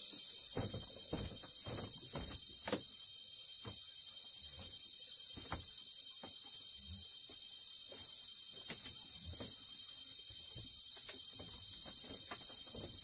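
Steady high-pitched insect chorus, crickets or similar, with scattered light knocks and clicks throughout.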